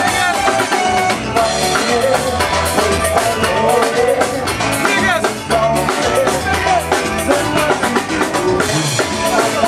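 Loud band music: a drum kit and a pulsing bass line, with a singing voice over it.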